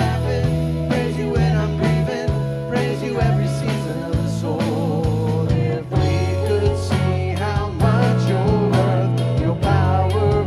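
Contemporary worship band playing a song live, with a bass line, drums keeping a steady beat and a melody over them.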